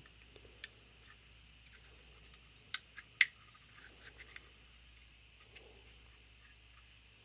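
A few light, sharp clicks and small ticks of metal carburetor parts and a hand tool being handled, the sharpest two close together near the middle, over a faint steady low hum.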